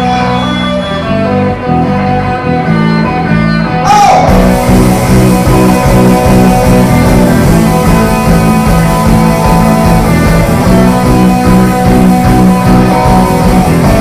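Live rock band playing, mostly guitar at first; about four seconds in the full band comes in with a sudden loud hit and carries on loud and dense.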